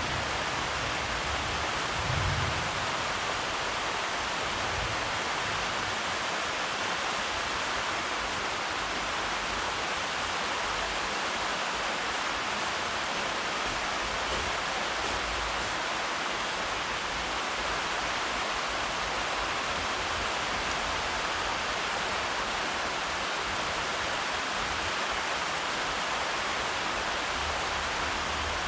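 Steady rainfall, an even hiss of rain without pause.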